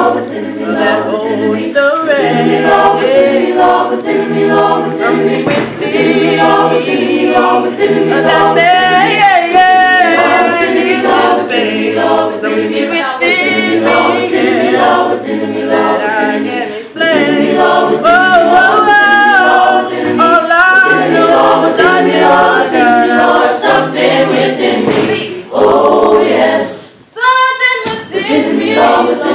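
Mixed a cappella choir singing a gospel song in harmony, with sustained low bass notes under the upper voices and a lead voice over the group. Near the end the singing dips briefly, then a voice climbs in a high rising run.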